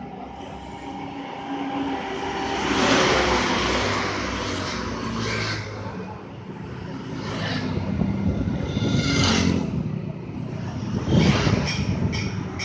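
Engine of a vehicle-mounted circular sawmill (serkel mobil) running, revving up and easing off in several swells.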